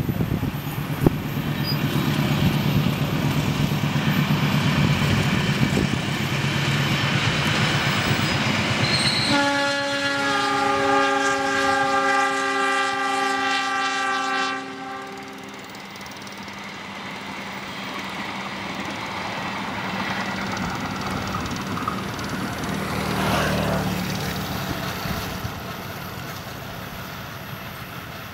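GE diesel-electric locomotive hauling a passenger train at speed, its engine drone mixed with the rolling noise of the wheels on the rails. About ten seconds in, the air horn sounds a chord of several tones for about five seconds. After it, a quieter, more distant train rumble.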